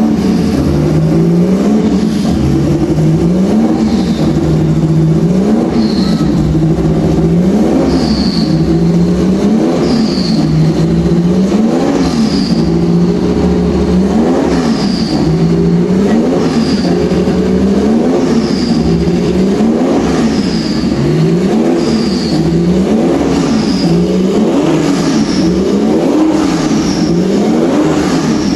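Porsche 935/78 'Moby Dick' race car's twin-turbocharged flat-six being blipped over and over, its pitch climbing and dropping back about once every two seconds.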